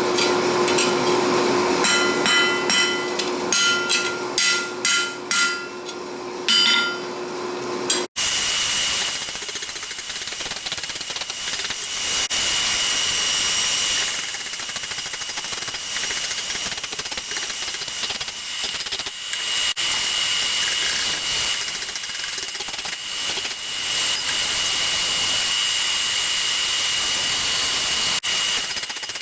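Hammer blows ringing on steel, about a dozen separate strikes over a steady hum. About eight seconds in, a sudden cut to a power tool running steadily with a high whine.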